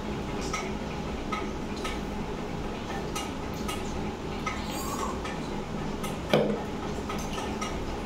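Stainless steel bowl and plate clinking as curry is poured from the bowl over rice, with one sharp clank about six seconds in as the metal bowl is set down on the table. A low steady hum runs underneath.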